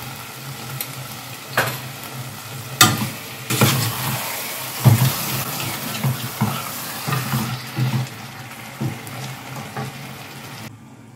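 Steel ladle stirring chicken masala and curd in a stainless steel stockpot, scraping and knocking against the pot's sides, over the steady sizzle of the chicken frying in the masala. The sizzle stops abruptly near the end.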